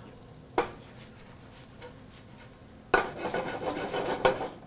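Metal cookware being handled at a commercial gas range: a single sharp knock about half a second in, then about a second and a half of scraping and clattering from about three seconds in, ending in a loud clank.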